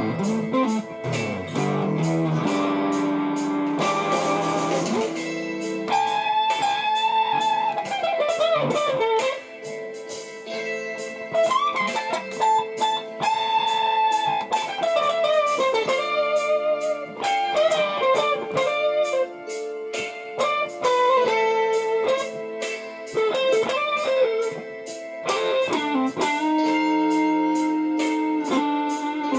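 Stratocaster-style electric guitar playing a slow blues in A minor, lead lines of sustained notes with string bends and vibrato.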